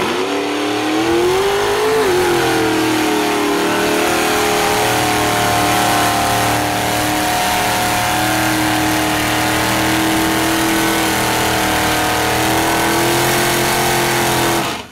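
Mud-bogging limousine's engine running hard at high revs. Its pitch climbs over the first two seconds, then holds high and steady, and it cuts off suddenly at the end.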